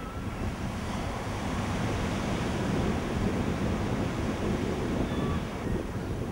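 Sea surf: waves washing and breaking in a steady rush, with wind.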